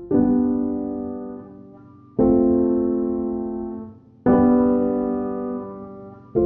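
Background piano music: slow sustained chords, a new one struck about every two seconds and left to fade.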